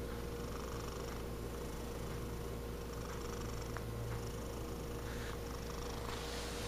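A large orange tabby cat purring steadily, close to the microphone.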